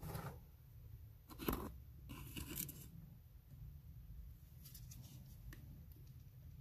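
A few short, faint scrapes and crunches, the sharpest about a second and a half in and a longer rasping one just after, over a low steady rumble.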